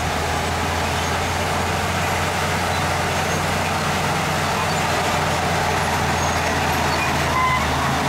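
Heavy diesel engine of an earthmoving machine running steadily under load: a constant low drone.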